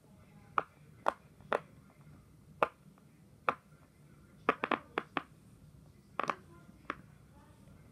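A series of about a dozen short, sharp clicks at uneven intervals, some coming in quick runs of two or three, over a faint low hum.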